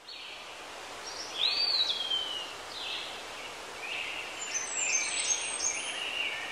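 Birds chirping and whistling over a steady outdoor hiss. A clear whistle rises and then slides down about a second and a half in, with shorter chirps through the rest.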